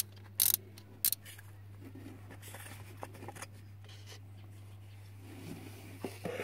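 Socket ratchet loosening the thermostat housing nut: two short ratcheting strokes about half a second apart in the first second, then faint clicks as the housing is lifted off, over a steady low hum.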